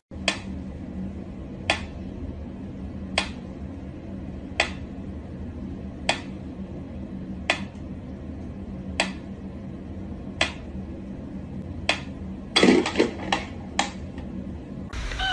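Mechanical pendulum metronome ticking slowly and evenly, about one tick every second and a half. Near the end a thump and a quick run of knocks break in.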